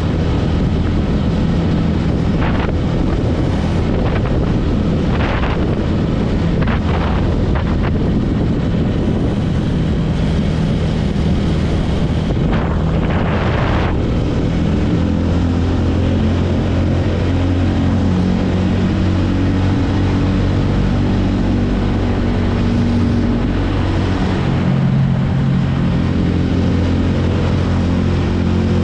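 TVS Ronin's 225 cc single-cylinder engine and exhaust running steadily under way, with wind noise on the microphone. A few short rushes of noise come in the first half, and about halfway the engine note settles into a steadier, deeper hum.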